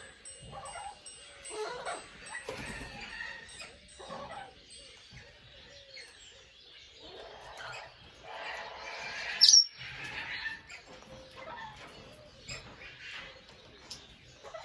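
Amazon parrots chattering softly and working at new toys with their beaks, with scattered small clicks. About nine and a half seconds in comes one loud, shrill squawk.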